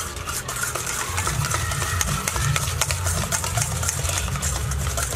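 Egg whites and powdered sugar being beaten by hand in a stainless steel bowl: fast, steady clicking and scraping of the utensil against the steel, with a low rumble beneath.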